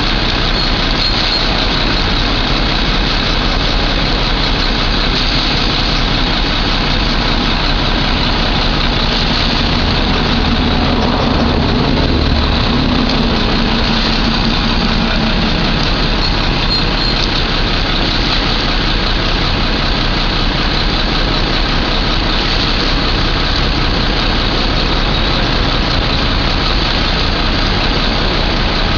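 Heavy vehicle engine running steadily at idle, with a low hum that swells briefly about halfway through and then settles again.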